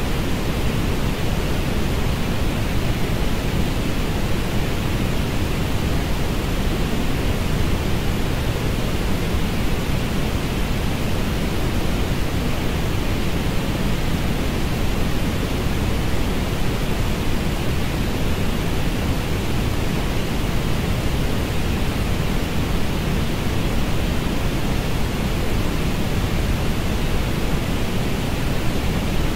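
Steady stereo orange noise, an even rushing hiss that is heaviest in the bass and thins out toward the treble, unchanging throughout.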